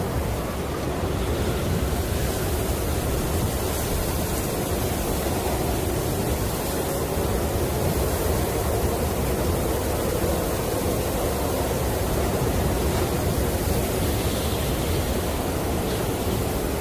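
Snowstorm wind blowing steadily: an even, deep rush with most of its weight low, rising and falling only slightly.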